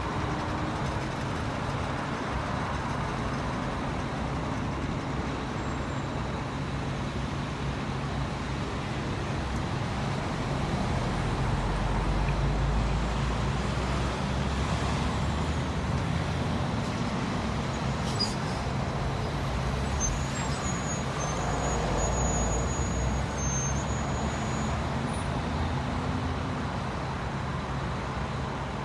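Heavy vehicle engines and road traffic running steadily, with a deep engine rumble that swells for a few seconds midway and again later.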